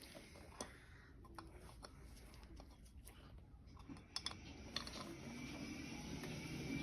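Faint, scattered light metallic clicks and taps from a flat punch being set against the CV joint on a classic Mini driveshaft, a few of them close together about four seconds in.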